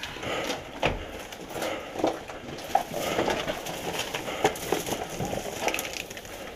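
Irregular footsteps with knocks and rattles of carried gear as people in tactical kit move through a building and up to a doorway.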